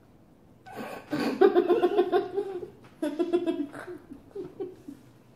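Giggling laughter in two bouts, the first starting about a second in and the second about three seconds in.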